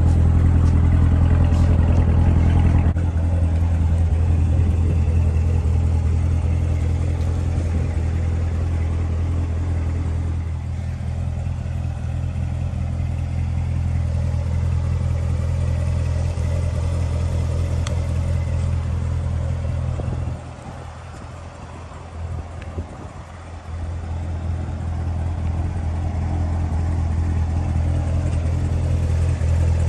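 Corvette Z06's supercharged V8 idling steadily, a deep even burble. It goes briefly quieter and thinner about two-thirds of the way through.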